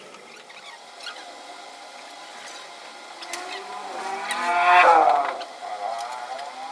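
A vehicle engine passing by: it grows louder, is loudest just before five seconds in, and drops in pitch as it passes, then fades. A few faint clicks sound around it.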